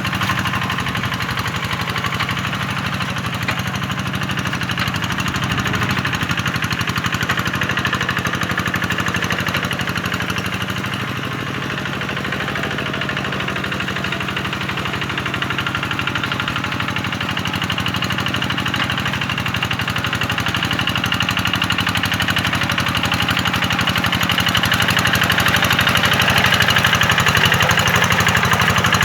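Tractor engine running steadily, getting a little louder near the end.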